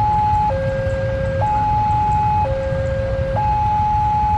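Railway level-crossing warning alarm sounding its two-tone signal: a high tone and a low tone alternate, each held about a second, over a steady low rumble.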